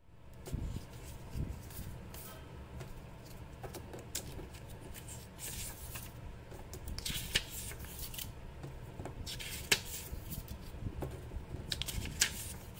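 Sheets of paper rustling as they are lifted and turned over by hand on a table, with a few sharper papery flicks.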